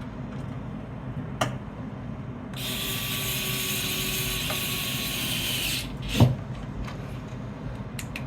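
Electric screwdriver whirring steadily for about three seconds as it drives a motherboard mounting screw. A light click comes before it starts, and a sharper knock follows just after it stops.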